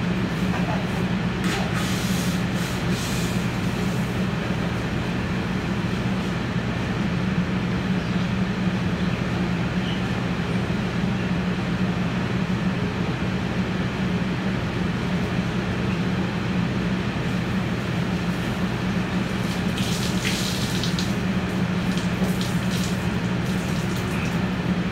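Water hissing and steaming on a hot flat-top griddle as it is washed, over the steady hum of a kitchen exhaust hood fan. Short scraping strokes come about two seconds in and again around twenty seconds in.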